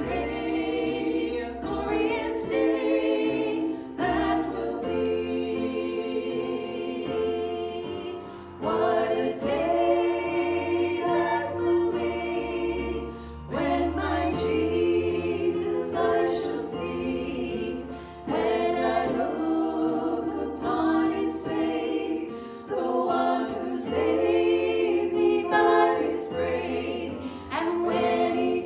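Group of voices singing a gospel worship song in phrases of a few seconds, over steady low notes.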